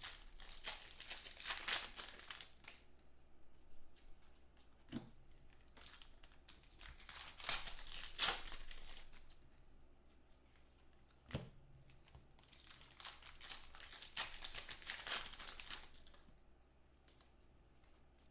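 Foil trading-card pack wrappers crinkling and tearing as they are ripped open by hand, with cards being handled between the spells of rustling. The rustling comes in several stretches of a couple of seconds each, with a few soft knocks in between.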